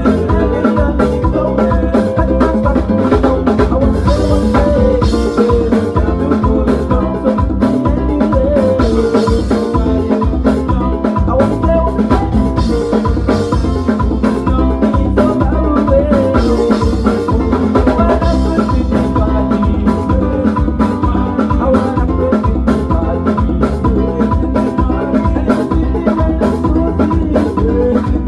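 Music with a busy, steady drum-kit beat under pitched melodic instruments, loud and continuous.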